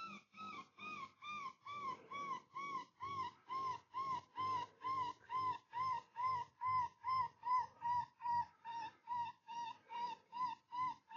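Predator call sounding a whimpering distress cry: short, arched yelps repeated evenly about twice a second, the pitch easing slightly lower as it goes on. It is used to lure coyotes and foxes in.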